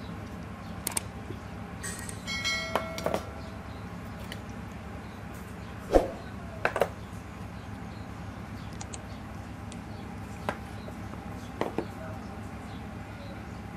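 Stainless steel bowls and plates clinking and knocking as food is served from small bowls onto rice plates: a scattering of sharp clinks, one ringing on briefly about three seconds in, and the loudest knock near the middle, over a steady low hum.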